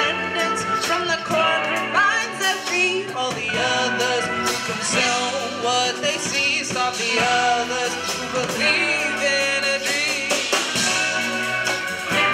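Live band performing a song: a singer's voice over instruments, with frequent drum hits.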